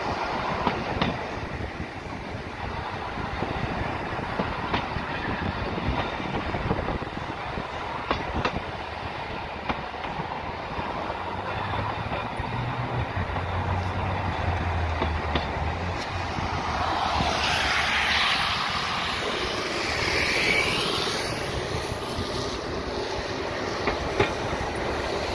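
Interurban tram running along its track, a steady rumble of wheels and running gear with scattered clacks over rail joints. For a few seconds past the middle the wheels squeal.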